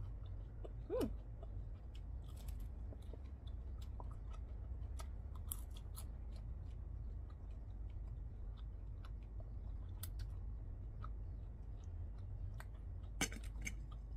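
Close-miked chewing of crunchy shell-on fried shrimp: a run of crisp, separate crackles over a steady low hum, with a louder clack near the end.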